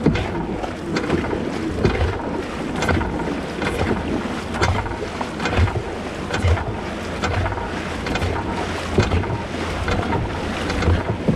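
A dragon boat crew paddling hard in unison, the paddles digging into the water together about once a second with a splash on each stroke. Wind blows on the microphone throughout.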